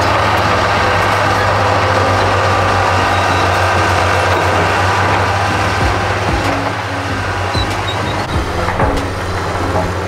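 Diesel engine of a crawler bulldozer running steadily with a low drone as it pushes dirt, with scattered knocks and clanks in the second half.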